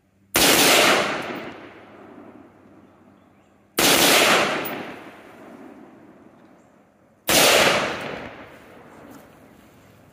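AR-15 rifle with a binary trigger firing three loud reports about three and a half seconds apart, each trailing off in a long echo over a couple of seconds.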